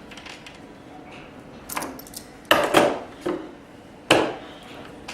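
Small wiring parts and hand tools being handled on a bench: several sharp clacks and rustles, loudest in the middle.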